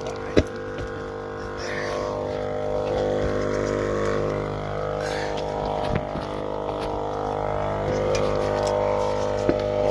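A steady mechanical drone with several even tones, with a few short, sharp knocks: a couple near the start, one in the middle and one near the end.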